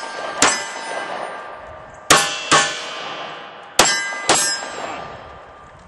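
Handgun shots on a shooting stage: one shot about half a second in, then two quick pairs of shots, each pair about half a second apart. Each shot leaves a long metallic ring that dies away slowly.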